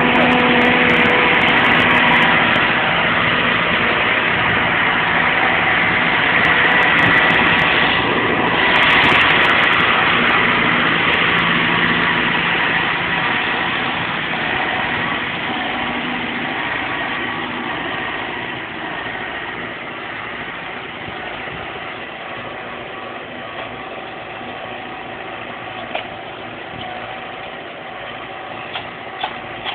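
Farm tractor engine running steadily while pulling a disc plough, gradually growing fainter through the middle of the stretch. A few sharp clicks near the end.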